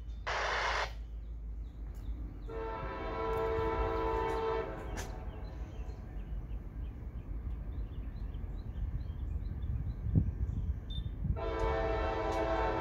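Freight locomotive air horn sounding two long blasts as a CSX local train approaches: one starts about two and a half seconds in and lasts about two and a half seconds, and another begins near the end. A brief hiss comes right at the start, and a steady low rumble runs underneath.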